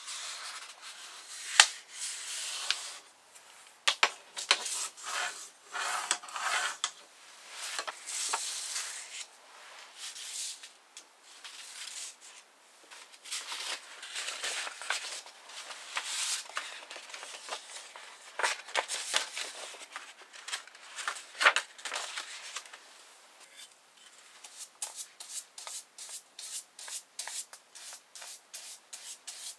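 Sheets of paper being folded, creased and shuffled by hand, with irregular rustles and a few sharp taps. About 24 seconds in, it changes to a brush spreading paste over a sheet of paper in even back-and-forth strokes, about two a second.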